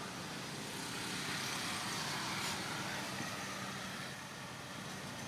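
Steady outdoor background noise: a low hum under a hiss that swells slightly about halfway through.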